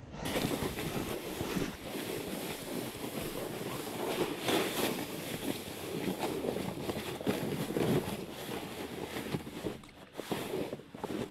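A plastic ice-fishing sled being towed over snow, its hull scraping and hissing, with irregular crunches from the snowshoe steps. The noise eases off near the end as the sled stops.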